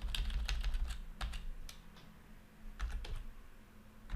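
Computer keyboard being typed on: irregular key clicks, busiest in the first second and sparser after, as a command is typed into a command window.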